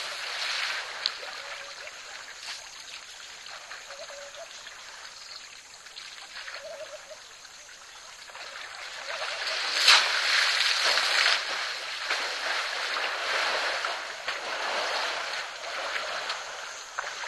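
Water sloshing and splashing as elephants wade through a shallow waterhole. It grows louder about ten seconds in, when a second elephant wades in, with a sharp splash at the start of it.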